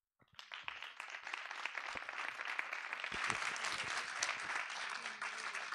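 Audience applauding: many hands clapping together, building up over the first second and then going on steadily.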